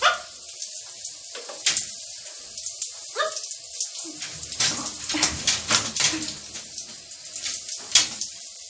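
Shower water spattering steadily over a wet blue-and-gold macaw and the glass screen, with a couple of short, rising calls from the macaw. Near the end comes a loud flap of its wings.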